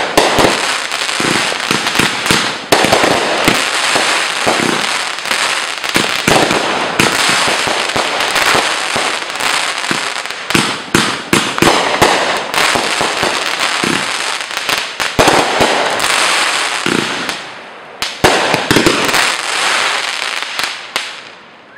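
Aerial fireworks going off in a rapid barrage of bangs with crackling glitter between them. There is a short lull about 18 seconds in, then a last burst of shots that dies away near the end.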